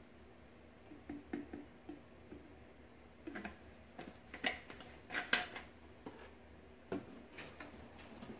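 Irregular light clicks and knocks as a plastic sample bottle and a glass separatory funnel are handled: the bottle is set aside after pouring and the stopper is fitted into the funnel's neck. The sharpest knocks come about halfway through.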